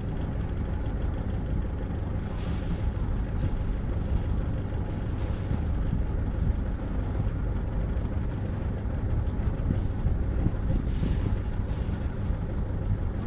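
Sailboat's inboard engine running steadily at low speed as the boat motors out, a constant low rumble.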